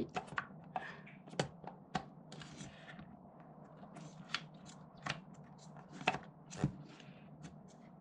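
Irregular small wooden clicks, taps and scrapes as the sliding panels of an old Japanese wooden puzzle box are pushed and worked by hand, with a few sharper knocks.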